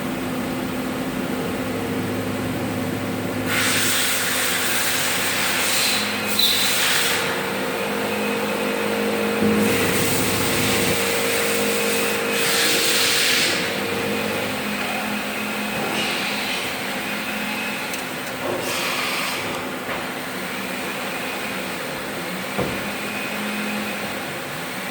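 CNC machine running with a steady hum, broken by several bursts of hissing, the longest about three seconds.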